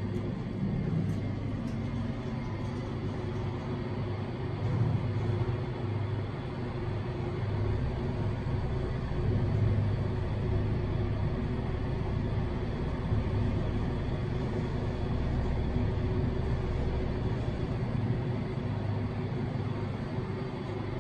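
Thyssen elevator car travelling upward, heard from inside the cab: a steady low rumble and hum of the ride.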